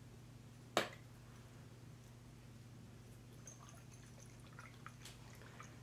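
One sharp click from a small spray bottle being handled in the hands about a second in, then a few faint ticks, over a low steady hum.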